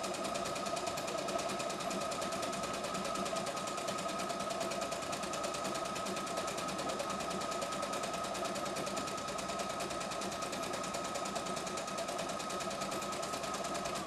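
CNY E960 computerised sewing and embroidery machine stitching a decorative pattern automatically at steady speed: a rapid, even clatter of needle strokes over a steady motor whine.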